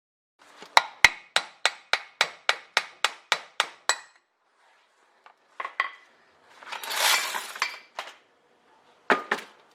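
Hammer blows ringing on the metal of a Suzuki LJ front swivel hub as it is taken apart: about ten strikes at roughly three a second, then a second of metal parts rattling and scraping, then two more strikes near the end.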